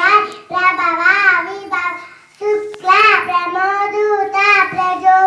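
A young girl singing solo into a microphone, in sung phrases with a short break about two seconds in.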